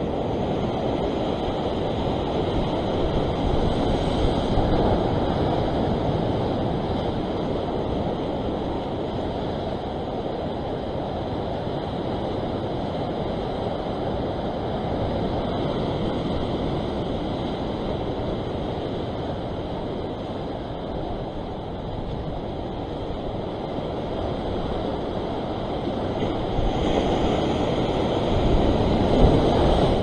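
Ocean waves surging and washing over a rock ledge, a steady rushing wash that swells about four seconds in and again near the end.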